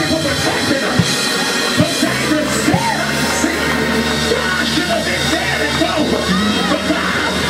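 A live church band playing praise music: drums, electric bass guitar and keyboard, with voices singing and shouting over it.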